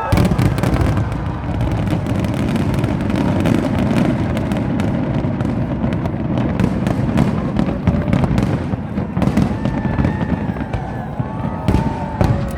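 A large fireworks display going off: a dense, continuous barrage of booms and crackling bangs that starts suddenly, over a steady low rumble.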